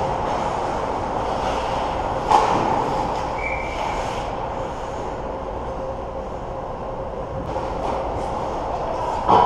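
Ice hockey play close to the net: skate blades scraping and carving on the ice over a steady rink rumble. There is a sharp crack about two and a half seconds in, a short high tone about a second later, and another sharp crack near the end, from stick or puck impacts.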